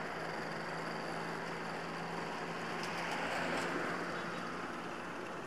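Motorcycle riding noise picked up on a helmet-mounted camera: steady wind and road hiss over a low engine hum, swelling slightly about three seconds in.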